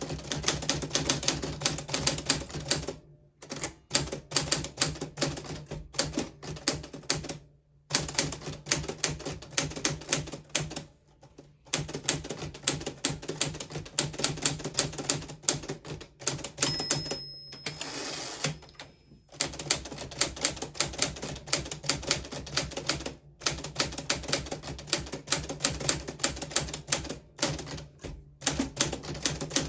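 1940s Smith Corona Silent manual typewriter being typed on: rapid key strikes in runs, broken by several short pauses.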